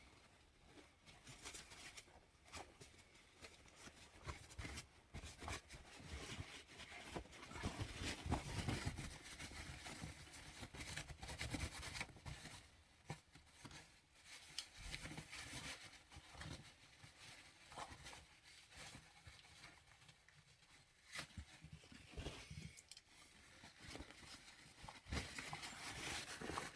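Faint, irregular rustling and clicking as a paper towel is worked over a washing machine's plastic drain filter.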